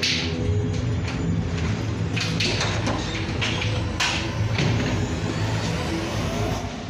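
A low rumbling drone under a string of sudden swishes and knocks: a door pushed open at the start, then people hurrying in with bags, with a sharp knock about four seconds in.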